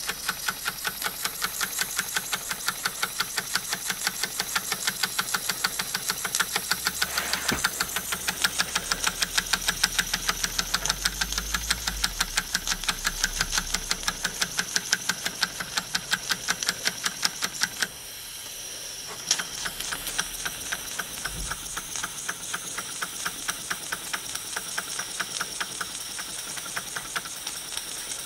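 Wilesco toy steam engine running under steam: its cylinder beats fast and evenly, over a steady steam hiss.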